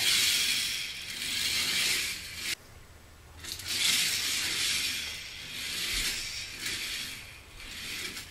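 Plastic-wheeled K'NEX coaster car, its top road wheels oiled and carrying extra weight, rolling along the plastic K'NEX track: a rolling rattle of the wheels on the rails that swells and fades as the car runs. It cuts off suddenly about two and a half seconds in and starts again about a second later, then comes in several swells that die away.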